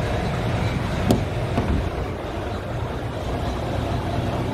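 Scania S730's V8 diesel engine idling steadily, with one short click about a second in.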